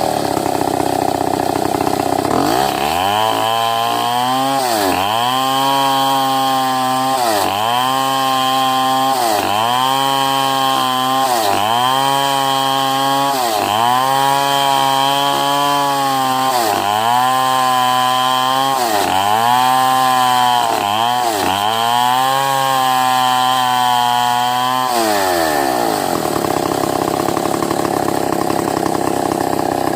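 Two-stroke chainsaw ripping a medang log lengthwise. The engine revs up, holds at high speed with its pitch dipping briefly about every two seconds as the chain bites into the wood, then drops back to a lower steady speed near the end.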